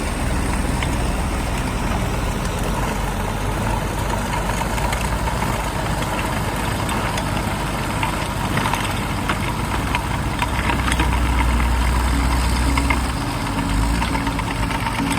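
Tractor diesel engine running steadily, with rattling and clicking from the working machinery; the low engine drone grows louder for a few seconds past the middle.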